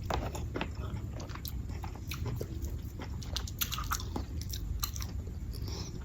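A person chewing and biting food close to the microphone: irregular wet mouth clicks and smacks over a low steady hum.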